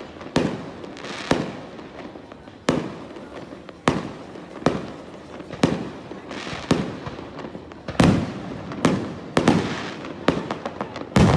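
Aerial fireworks bursting: a series of sharp bangs about one every half second to second, each trailing off in a rumbling echo, coming closer together and louder near the end.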